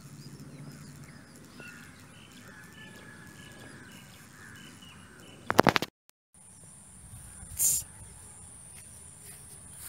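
Outdoor ambience with small birds chirping and a steady high insect hum. A loud rattle of clicks about five and a half seconds in, then a brief dropout and a short hiss about two seconds later.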